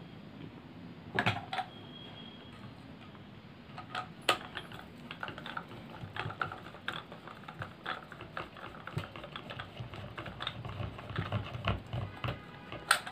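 Screwdriver turning a long screw into the plastic switch housing of a Bosch hand blender: a few sharp clicks about a second in, then an irregular run of small clicks and taps from about four seconds on.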